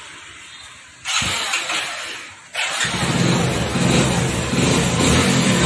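Hero Splendor Plus's single-cylinder four-stroke engine being started for the first time after reassembly: a short spell of cranking, then it fires up about two and a half seconds in and keeps running.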